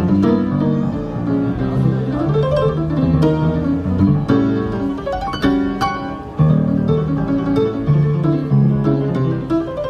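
Instrumental music: quick runs of short notes in a plucked-string tone over a lower line, with a short drop in loudness a little past six seconds in.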